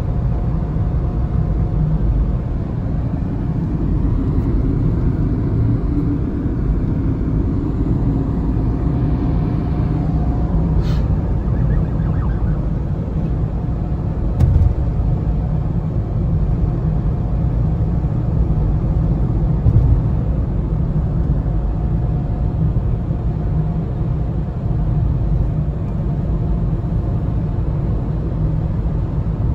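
Steady road and engine noise heard inside a car's cabin while driving at highway speed: a low rumble, with a couple of brief thumps in the middle.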